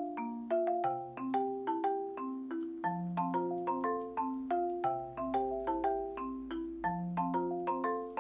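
Background music: a tune of quick struck notes that ring and fade, like a marimba, with a deeper note joining every couple of seconds.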